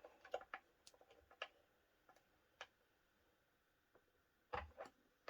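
Faint, scattered small clicks and taps of a spark plug being worked into a strimmer's spark plug cap, with a slightly louder cluster of clicks about four and a half seconds in.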